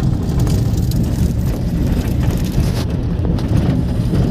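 Moving vehicle driving along an unpaved dirt track: a steady, loud low rumble of engine and tyres, with frequent small knocks and crackles.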